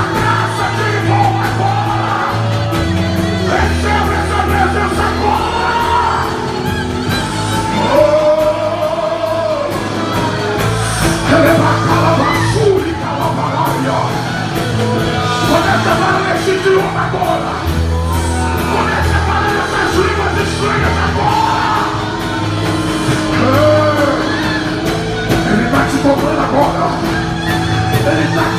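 Worship music: a man's voice singing through a microphone over long held low chords that change every few seconds, with some yells from the congregation.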